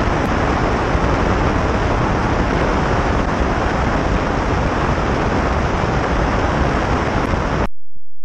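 Steady rushing wind and engine noise picked up by a camera mounted outside a high-wing light aircraft in flight. It cuts off abruptly near the end, leaving a faint steady hum.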